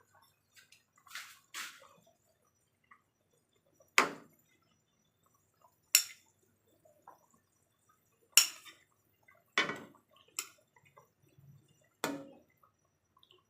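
Kitchen utensils knocking and clinking against cookware: a string of separate sharp clinks a second or two apart, two soft ones near the start and louder ones from about four seconds in.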